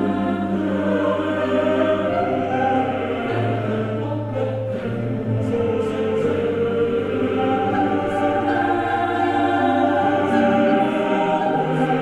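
Background music: a choir singing slow, long-held chords over a low sustained bass.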